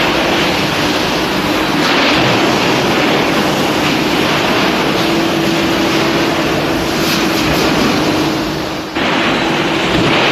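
Factory machinery running: a loud, steady rushing noise with a faint low hum underneath, with a brief dip and a sudden change about nine seconds in.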